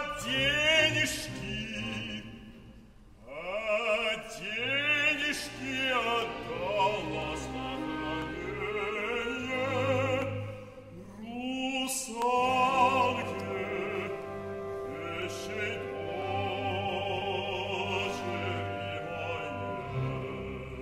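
Male operatic singing with a wide vibrato over a symphony orchestra, sung in phrases with short breaks between them.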